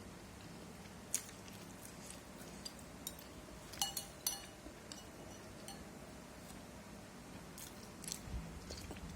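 A spoon clinking against a bowl while eating soup: a few sharp clinks spread out, two of them close together about four seconds in and ringing briefly.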